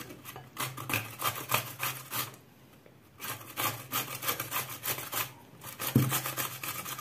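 Pickled cucumber rubbed over a stainless steel box grater: quick rasping strokes in three runs with two short pauses.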